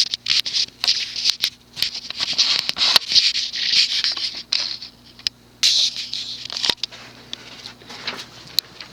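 Hampton Bay Callaway II ceiling fan motor running on its low setting: a steady hum under many irregular clicks and scratchy rustling bursts. Low runs far too fast, which the owner puts down to poor capacitor values or a faulty capacitor in the remote receiver.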